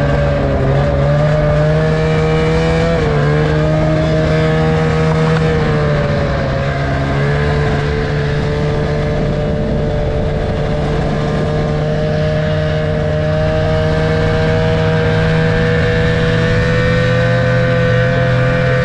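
Snowmobile engine running at a steady cruising speed while riding. Its pitch wavers and dips briefly a few seconds in, then holds steady.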